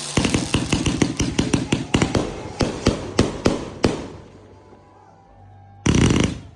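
A 100-shot consumer fireworks cake firing a rapid string of sharp bangs for about four seconds, then dying away. A short loud rush of noise comes near the end.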